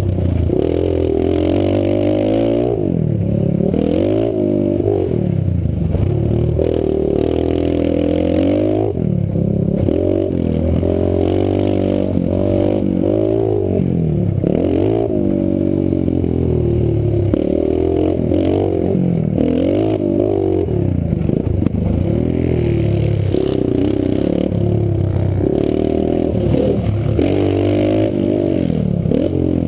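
Pit bike's small single-cylinder engine revving up and dropping back again and again, the pitch rising and falling every second or two as the rider accelerates, shifts and rolls off through the turns and jumps of a dirt track.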